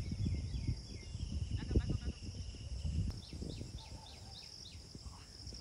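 Outdoor ambience: a steady high-pitched insect drone, with a bird calling in a quick run of short chirps in the second half, over gusty wind rumbling on the microphone.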